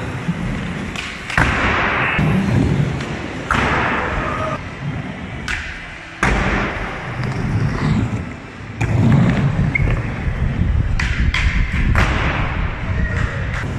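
Skateboard wheels rolling over concrete, broken several times by sharp clacks and thuds as the board pops, strikes and lands.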